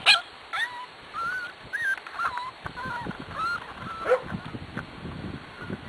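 Pembroke Welsh corgi puppies whining: many short, high-pitched whines, some sliding up or down in pitch, one after another.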